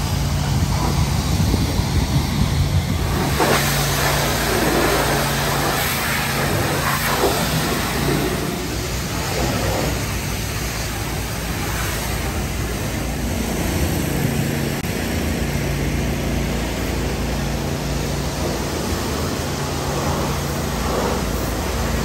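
Pressure washer running while a wand sprays water onto tractors: a steady hiss of spray over a low machine hum that fades in and out.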